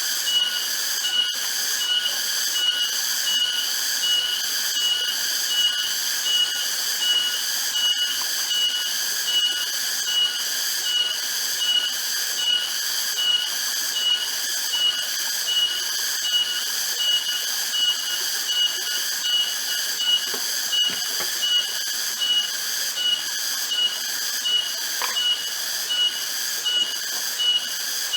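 A chorus of forest insects droning in high, steady bands that pulse evenly about one and a half times a second.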